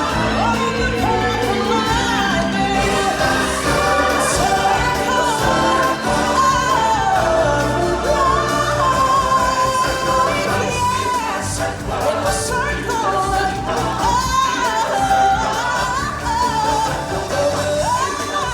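Live stage-show music: singers over a full backing band, a lead voice carrying a gliding, sustained melody without clear words.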